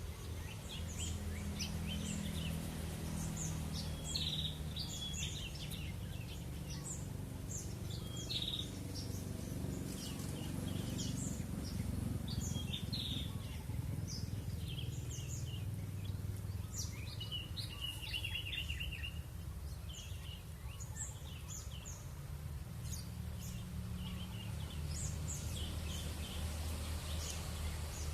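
Many small wild birds chirping and calling back and forth, short high notes overlapping one another, with a quick run of repeated notes about eighteen seconds in. A steady low rumble runs underneath.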